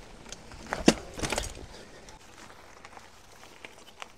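A few sharp clicks and knocks close together about a second in, then scattered faint ticks.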